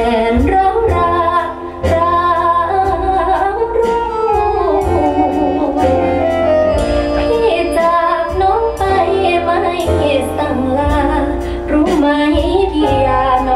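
A woman singing a slow song with instrumental backing, played back over a hi-fi loudspeaker system; her long held notes waver in pitch.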